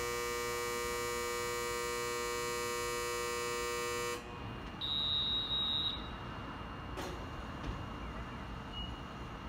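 A railway departure buzzer gives a steady electric buzz that cuts off suddenly about four seconds in. About a second later there is a short high beep, and a single click follows near seven seconds. Wind rumbles on the microphone throughout.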